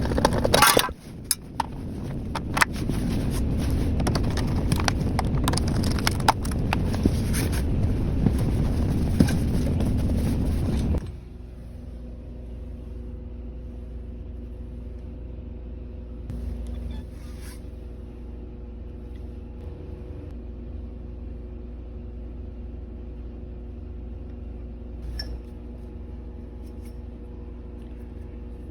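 Loud scraping and clattering with sharp clicks for about eleven seconds, stopping abruptly, then a steady low hum.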